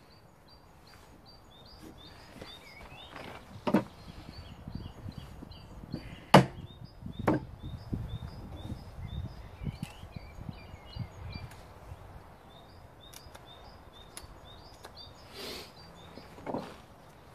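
Several sharp wooden knocks and clatters from hand tools being worked and handled on a wooden workbench, the loudest about six seconds in. A small bird chirps repeatedly in the background throughout.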